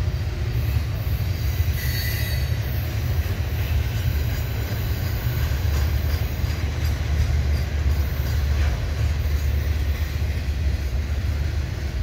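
Loaded double-stack container well cars of a freight train rolling past at slow speed, a steady low rumble of steel wheels on rail. Faint, brief high wheel squeal shows about two seconds in, as the train takes a curve.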